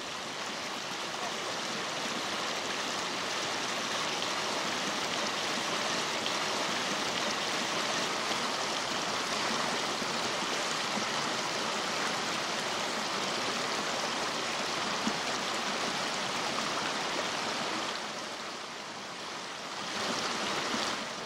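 Mountain river running over shallow rapids: a steady rush of water, a little quieter for a couple of seconds near the end.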